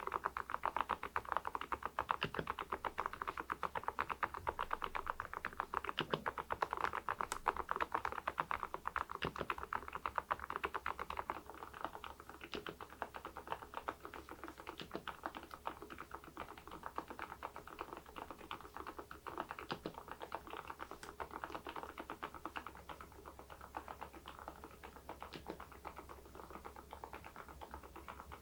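Continuous fast typing on an Epomaker TH80 V2 PRO mechanical keyboard fitted with Kailh Deep Sea switches and ceramic keycaps: a dense run of keystroke clicks, somewhat softer after the first dozen seconds.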